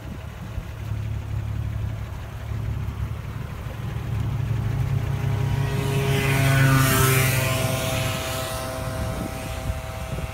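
A motor vehicle passing by: its engine and hiss swell to a peak about seven seconds in and then fade, over a steady low hum.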